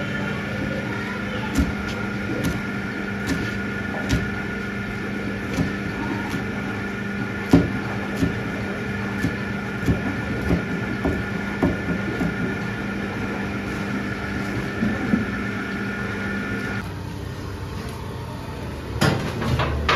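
A steady mechanical hum with several level tones cuts off suddenly a few seconds before the end, over scattered clinks and knocks of utensils and plates being handled.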